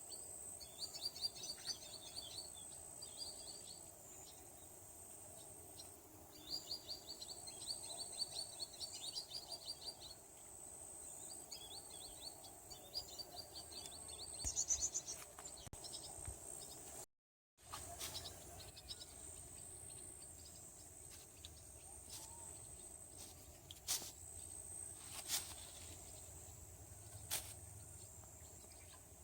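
Small birds singing bouts of quick, high trills over a steady, thin, high insect drone. The sound drops out for a moment midway, and after that a few sharp clicks stand out over the drone.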